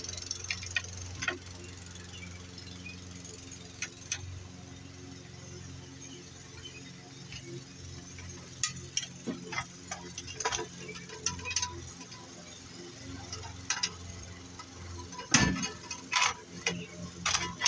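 Scrap metal pieces clinking and knocking as they are handled, with scattered clinks through the second half and a louder knock about fifteen seconds in, over a steady low hum.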